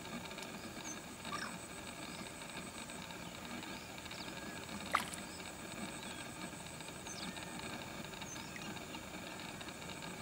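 Steady low background hiss with a few faint, short, high-pitched chirps scattered through it and a single sharp click about five seconds in.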